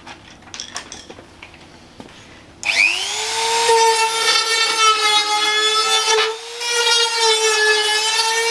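A Dremel rotary tool is switched on about two and a half seconds in. It spins up quickly to a steady high whine while grinding the edge of a freshly hole-sawn opening in a car's sheet-metal front guard. The whine dips briefly about six seconds in.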